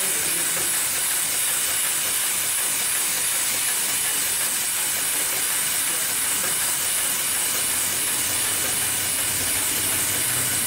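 Automatic buffing-wheel sewing machine running steadily while it stitches cotton cloth into a polishing wheel, heard as an even, high hiss with no distinct stitch rhythm.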